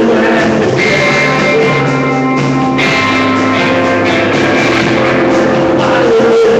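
Live rock band playing loud: electric guitars holding chords that change every second or two over a drum kit, picked up by a phone's microphone.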